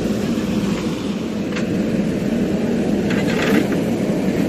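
Diesel engine of a JCB 3DX backhoe loader running steadily, with a couple of faint knocks over it.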